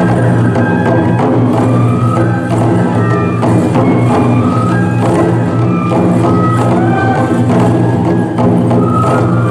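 Tora-mai (tiger dance) festival music: Japanese bamboo flutes play a high, shifting melody over steady beating on large taiko drums.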